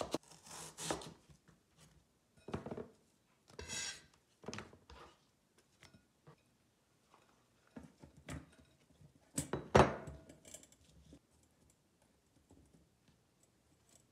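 Scattered knocks and clatters: a cleaver slicing taro on a plastic cutting board near the start, then taro slices tipped from a glass bowl onto a stainless steel steamer basket, with the loudest clatter about ten seconds in.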